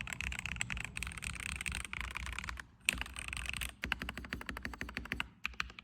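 Typing on a Keydous NJ80 mechanical keyboard in stock form, with its TTC Gold Pink switches (lightly factory-lubed) in a brass plate. Rapid keystrokes run in quick streams, broken by a short pause about three seconds in and another near the end.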